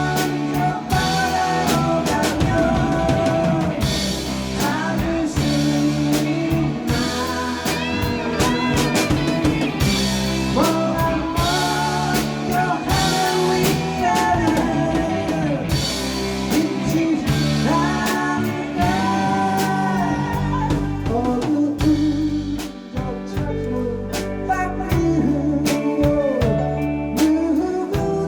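Live band playing a slow rock ballad: drum kit and bass keep a steady beat under electric guitar, with a lead melody that slides and bends in pitch.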